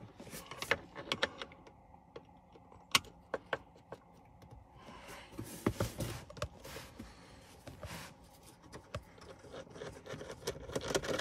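Scattered clicks, taps and rustles of plastic trim and a Torx screwdriver being worked as the steering column cover panels of a VW Tiguan are unscrewed and pulled off.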